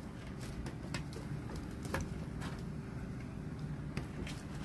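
Handling noise as hands fit a sewn mesh book-retaining cover into its clips under a wooden shelf: a few scattered light clicks and rustles, over a steady low hum.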